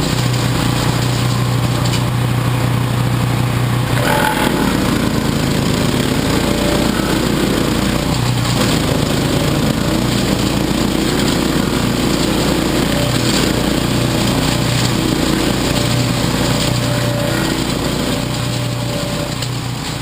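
A 13 hp Lifan single-cylinder gasoline engine on a chipper shredder running steadily at a constant speed, with a few faint short ticks over it. It eases off slightly near the end.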